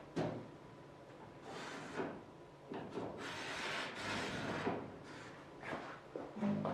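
Rubbing and scraping against a thin 2024-T3 aluminium wing skin as lines are drawn on its inside face along the ribs and spars, in several separate strokes. A sharp knock comes just after the start, and a short low tone near the end.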